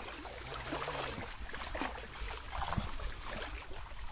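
Shallow river water splashing and sloshing irregularly as fishermen wade and haul a fine-mesh fishing net through it, over a steady low rumble.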